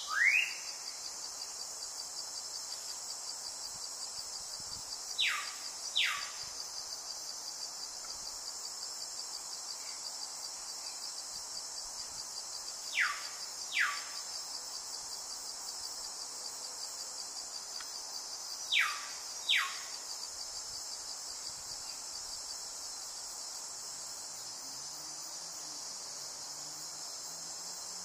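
A steady, high insect chorus, like crickets trilling, runs under a bird that gives pairs of quick downward-sliding whistles every several seconds.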